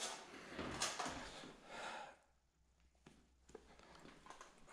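Scuffing and rustling with a few light knocks, from someone moving about a cluttered room; it falls almost quiet a little past halfway, then faint scuffs and clicks resume.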